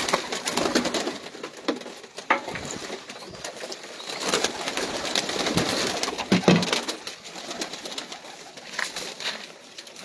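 Domestic pigeons cooing in an enclosed loft, with scattered short clicks and knocks throughout and a louder coo about six and a half seconds in.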